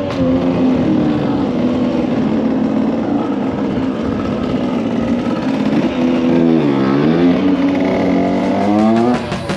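Small two-stroke supermoto engine revving hard at fairly steady revs; about two-thirds of the way through the revs drop and climb back again.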